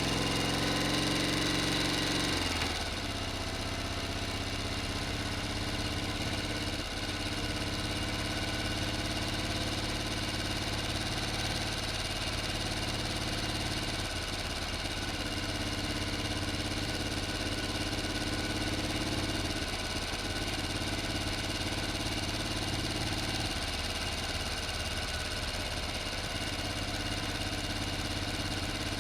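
An engine running at idle, a little louder for the first couple of seconds and then dropping to a steady lower idle.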